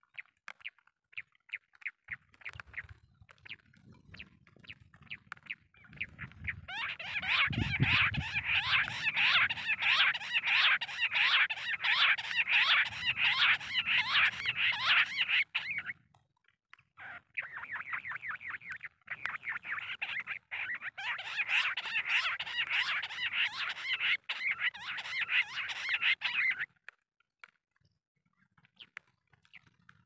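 Bush quail calls played from a portable speaker as a lure: a fast, chattering series of high repeated notes in two long runs of about nine seconds each, with a one-second break between them. Softer scattered calls come before the first run.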